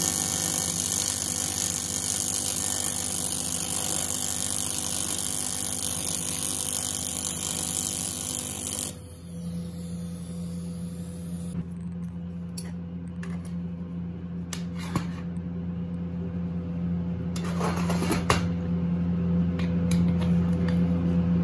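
TIG welding arc hissing and buzzing on a metal tube for about the first nine seconds, then cutting off abruptly. A steady low hum continues afterwards, with a few light clicks and knocks of metal being handled.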